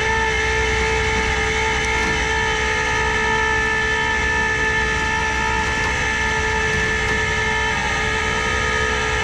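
Tow truck's hydraulic pump running under load: a steady, high, multi-toned whine.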